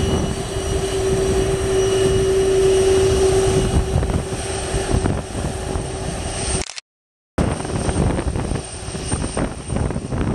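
Boeing 747 jet engines running at low power as the airliner taxis along the runway: a steady hum with a high whine. The sound cuts out for a moment just before seven seconds in, then resumes with wind buffeting the microphone.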